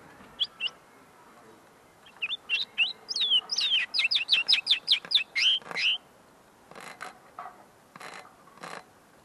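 Caged common linnet singing: two short chirps, then a fast run of sharp, falling notes, about five a second, for some four seconds, with a few fainter noisy sounds near the end. It is a young bird's song whose notes are not yet fully clear.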